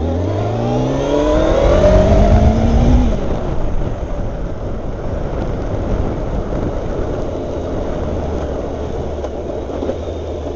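Motorcycle engine revving up as the bike accelerates, its pitch rising for about three seconds before the throttle closes; then it runs steadily at a lower note under steady wind and road noise.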